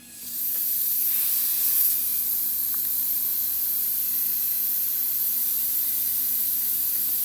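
Tormach CNC mill's coolant switching on and spraying: a sudden, loud, steady hiss.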